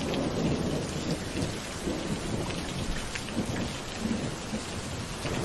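Heavy rain falling steadily, with a few low rumbles.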